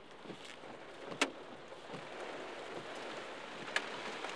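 Heavy rain pouring on a car, heard from inside the cabin, with a few sharp knocks of hailstones striking the car, the loudest about a second in.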